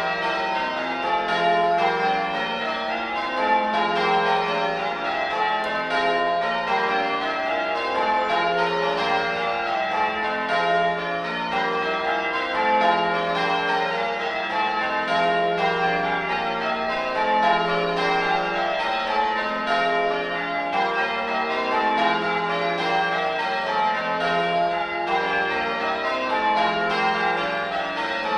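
A ring of eight 1954 Gillett and Johnston church bells rung full-circle in changes: a steady, even stream of strikes that overlap and ring on, with a mellow, boomy tone.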